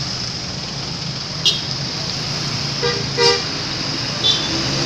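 Two short honks of a bus horn in quick succession about three seconds in, the second louder, over the steady low hum of idling or passing vehicles.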